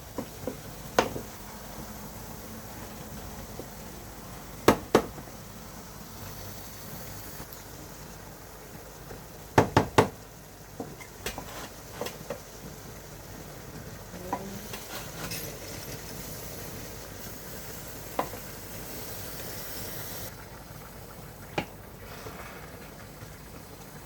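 Food frying in a pot with a steady low sizzle, while a cooking spoon knocks and scrapes against the pot every few seconds, with a quick cluster of knocks about ten seconds in.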